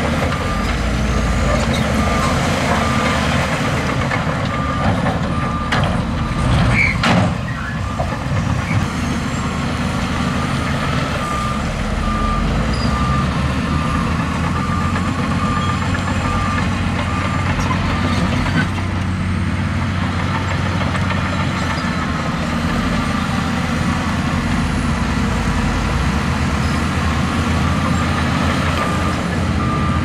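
Heavy earthmoving machine's engine running steadily, with its reversing alarm beeping at an even pace in several stretches. A short clatter about seven seconds in.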